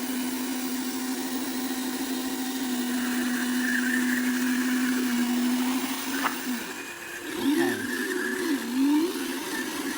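Small electric motor of a remote-control construction vehicle whining at a steady pitch. About six seconds in it stops after a click, then runs again with its pitch rising and falling as it speeds up and slows.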